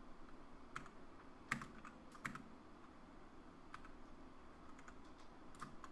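Slow, sparse typing on a computer keyboard: about eight faint, separate keystroke clicks with uneven pauses between them.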